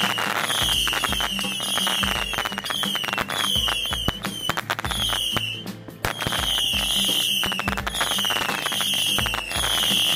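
A ground-launched consumer firework firing a rapid string of whistling shots. Each short whistle slides down in pitch, about one every half second or so, over dense crackling. There is a brief pause about six seconds in.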